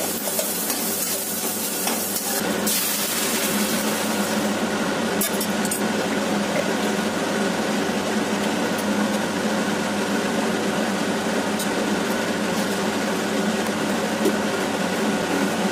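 Chopped onion and chilli sizzling in oil in a kadai while a spatula stirs and scrapes. About four seconds in, boiled dal goes into the pan for tempering. The sizzle softens to a steadier simmer, with a few spatula taps against the pan.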